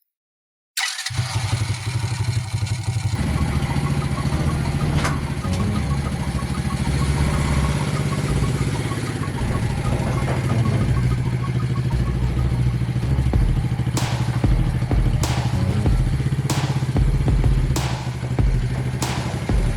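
A small engine running steadily on the homemade mini excavator, starting abruptly about a second in. In the second half, sharp clanks come about every second and a bit.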